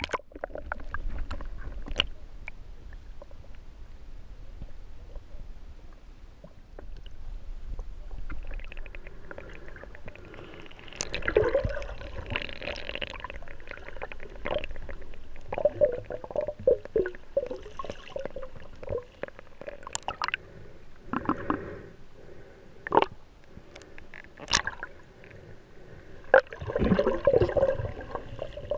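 Muffled underwater gurgling and water movement around a submerged camera, uneven throughout, with scattered sharp clicks and knocks.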